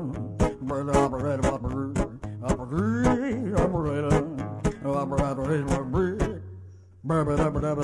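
Background music with guitar. It fades out about six seconds in and starts again about a second later.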